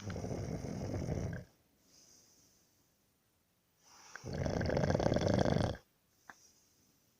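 A person snoring in sleep: two long snores about four seconds apart, each lasting about a second and a half, with quiet breaths between them and a brief click near the end.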